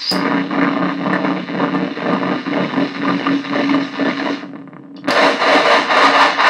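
Arturia MicroBrute and Nova Drone analog synthesizers cross-patched into each other and played through a small bass practice amp, making a harsh, gritty noise drone over a steady low tone. The sound thins out and nearly stops about four and a half seconds in, then comes back louder and brighter.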